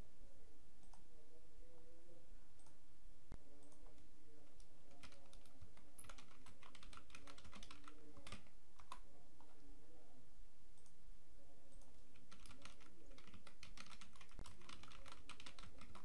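Computer keyboard typing in two quick runs of keystrokes, one about five seconds in and another near the end, with a few scattered single clicks between them.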